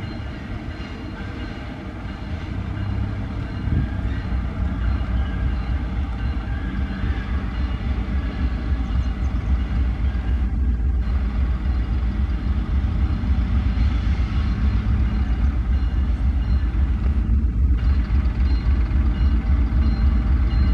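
GE Dash-9 diesel-electric locomotive's engine running as the locomotive rolls slowly closer, a low rumble that grows steadily louder.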